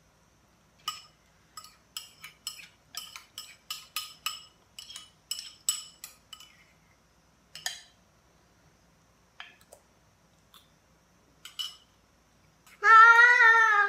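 Spoons clinking against ceramic bowls: a quick run of sharp, ringing clinks, then a few scattered ones. About a second before the end comes the loudest sound, a high, drawn-out vocal sound that bends in pitch.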